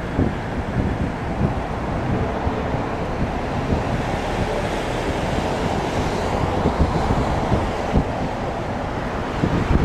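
Wind buffeting the microphone: a steady rushing noise with uneven low rumbles.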